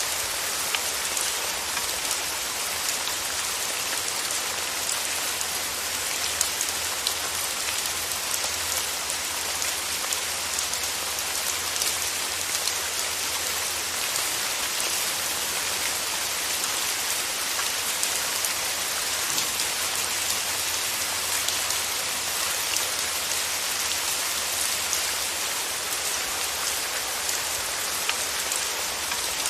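Steady rain falling: a dense, even hiss with many small drop ticks.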